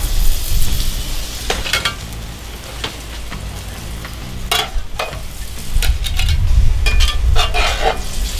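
Hamburger steak patties sizzling in a cast iron pan, with a metal spatula scraping against the pan several times as the patties are lifted out. A low rumble underneath grows louder in the second half.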